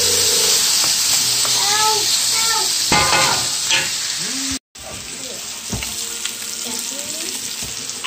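Shrimp, red onion and garlic sizzling in a cast-iron skillet, stirred with a wooden spoon, a steady frying hiss. Just past halfway the sound cuts out for an instant, then the sizzling goes on a little quieter.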